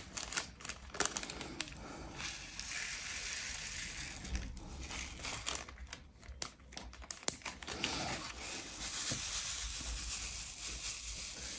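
Small plastic zip-lock bag of square crystal diamond-painting drills crinkling as it is handled and emptied, with the drills clicking and rattling into a plastic drill tray. Scattered sharp clicks run through it.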